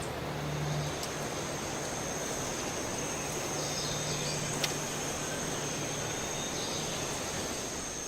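Outdoor ambience with a steady high insect trill, like crickets, over an even background hiss, with a faint low hum and a single short click about four and a half seconds in.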